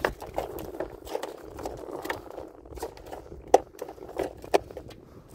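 Irregular knocks, taps and rustles of a just-caught pike being handled in an inflatable boat, with one loud knock about three and a half seconds in.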